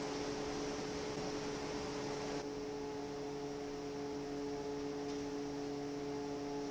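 Steady hiss of air and powder from a powder-coating spray gun over a steady hum from the booth's equipment; the hiss drops off abruptly about two and a half seconds in while the hum goes on.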